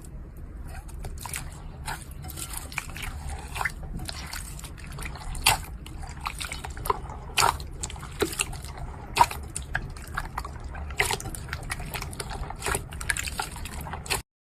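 Slime being squeezed and worked by hand, making irregular wet clicks and pops over a steady low hum. It cuts off abruptly near the end.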